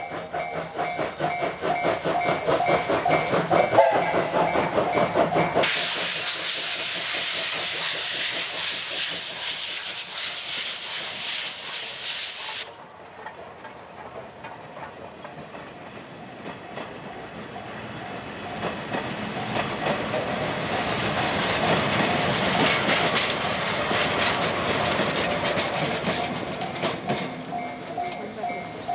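Steam locomotive working a train: rhythmic chuffing with its whistle still sounding over the first few seconds, then a loud hiss of steam for several seconds. About 13 seconds in the sound drops suddenly, and the chuffing and clatter of the train then build up again.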